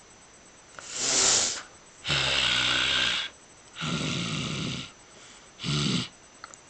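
A person making mock snoring noises with the throat and nose: four rasping breaths with short pauses between, the second and third the longest and buzziest.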